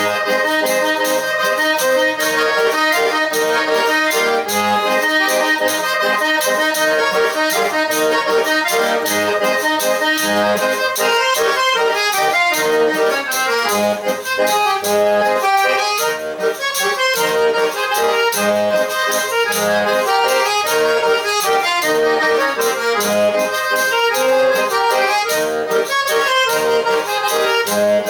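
Pé de bode, the Brazilian eight-bass button accordion, playing a lively traditional tune: a quick-moving melody over bass notes that come back at a steady beat.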